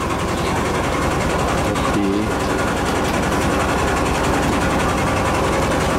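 A boat's engine running steadily, with an even, fast chugging.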